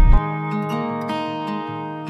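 Background music, a tune led by plucked guitar. A loud low rumble cuts off abruptly just after the start.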